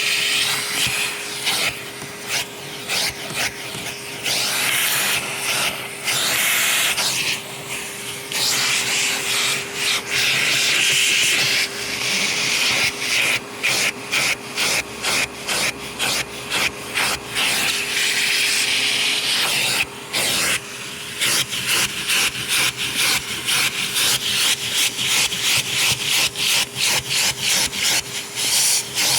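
Vacuum cleaner running over carpet: a steady motor hum under a rasping scrub that swells and fades in quick, regular strokes, faster in the second half.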